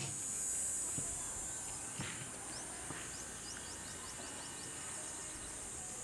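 Steady high-pitched insect drone, with a quick run of about ten short rising chirps near the middle.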